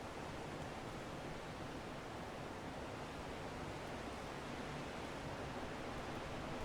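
Strong wind blowing steadily, an even rushing noise with no gusts or breaks.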